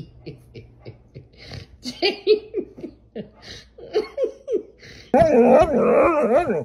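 Short, repeated bursts of a person laughing, then, about five seconds in, a husky's loud howl-like 'talking' cuts in, its pitch wavering up and down.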